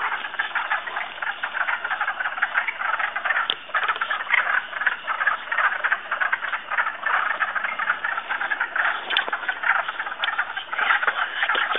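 Dense chorus of many frogs calling at once, their short calls overlapping into a steady, continuous din.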